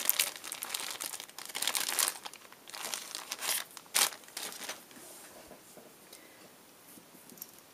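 Clear plastic bag crinkling as a bundle of blending tools inside it is handled and sorted through: a run of sharp crinkles over the first four seconds, the loudest about four seconds in, then only faint rustles.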